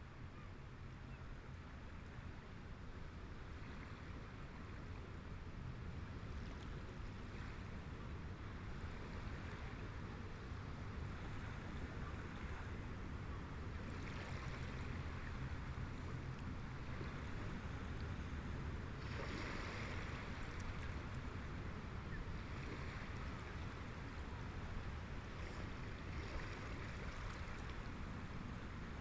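Steady low ambient rumble with a soft hiss, getting gradually a little louder over the first several seconds, with no distinct events.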